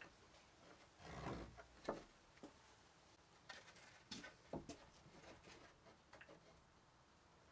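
Faint, scattered knocks and clicks, a handful in the first five seconds, over quiet background.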